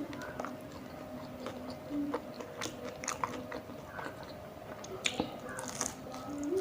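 Close-miked chewing of tandoori momos: irregular wet mouth clicks and bites with a little crunch.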